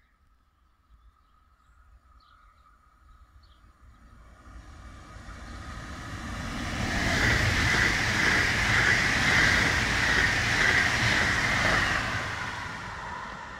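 Deutsche Bahn class 442 Talent 2 electric multiple unit passing through a station without stopping. It grows steadily louder as it approaches, is loudest for about five seconds as it runs past, then starts to fade.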